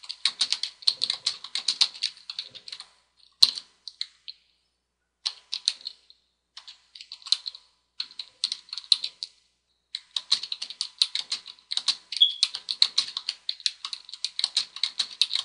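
Typing on a computer keyboard: runs of quick keystrokes with short pauses between them, and one sharper key click about three and a half seconds in.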